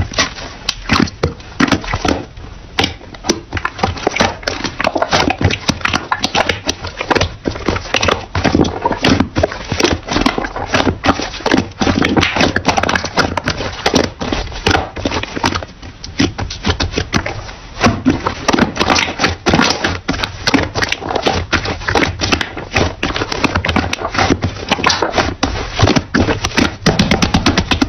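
Slime being squeezed and kneaded by hand, making a dense, irregular run of sticky clicks and small air-bubble pops.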